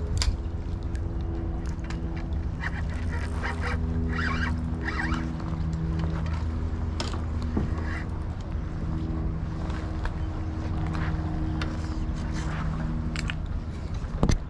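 Boat engine running steadily with a low, even hum whose pitch shifts slightly a few times, and a few sharp knocks near the start and the end.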